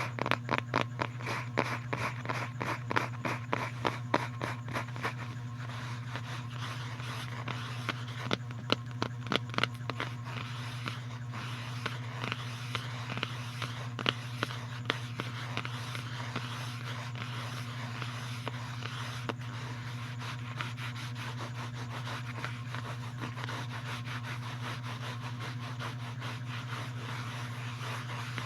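Quick sharp taps, several a second, for the first ten seconds or so, giving way to a steady scratching texture, over a constant low hum.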